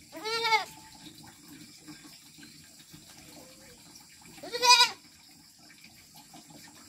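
Goat kids bleating: two high, quavering bleats, one right at the start and a louder one about four and a half seconds in.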